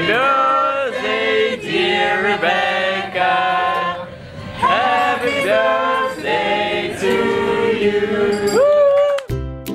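Several voices singing a birthday song together without instruments. About nine seconds in it cuts to strummed plucked-string music.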